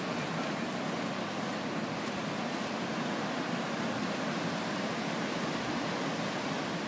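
Steady, even rush of ocean surf breaking on a beach, mixed with some wind.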